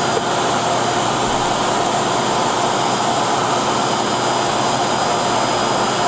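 yeedi vac max self-emptying station's suction motor running loud and steady, a rush of air with a thin whine on top, drawing the dirt out of the robot's dustbin into the station.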